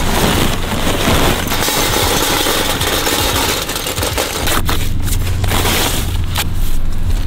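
Lump charcoal poured from a paper bag into a steel mangal grill: a dense rattling clatter of lumps tumbling against the thin metal and each other, thinning out about four and a half seconds in to a few separate knocks as the coals are settled.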